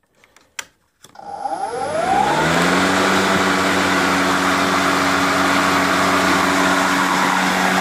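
Snapper 82-volt battery-powered push mower starting up: a few clicks as the start button and bail are worked, then the motor and blade spin up with a rising whine over about a second and a half and settle into a steady running hum.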